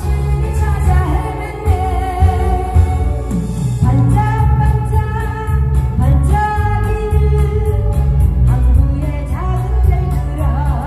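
Woman singing a Korean song through a stage microphone and PA, over amplified backing music with a steady beat.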